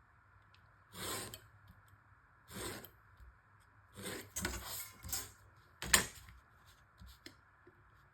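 Paper and card pieces being handled and slid across a work surface as they are lined up: several short rustling scrapes, with a sharper tap about six seconds in.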